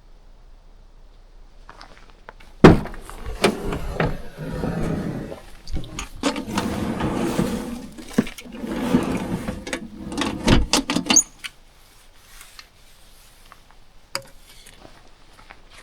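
Camping gear being handled: a sharp knock, then several seconds of rustling, scraping and clattering with repeated knocks, stopping suddenly, with a single click a few seconds later.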